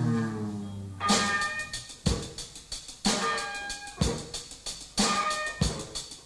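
Live band recording of loud, rough rock music: a drum kit hits a heavy beat about once a second, with pitched instrument notes ringing after each hit. In the first second a pitched tone slides downward.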